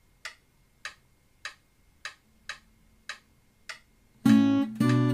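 Metronome ticking at about 100 beats a minute, one click every 0.6 seconds. About four seconds in, a steel-string acoustic guitar comes in on the beat, fingerpicking the opening of a bright chord-pattern warm-up exercise.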